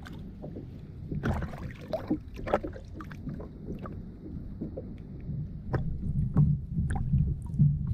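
Sea water slapping and gurgling against a kayak hull, with a low rumble of wind and water on the microphone that grows louder near the end. Scattered light clicks and knocks come from the fishing reel being wound during the fight.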